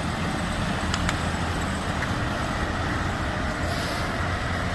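Steady street traffic noise, a constant low rumble of passing vehicles, with a couple of faint clicks about a second in.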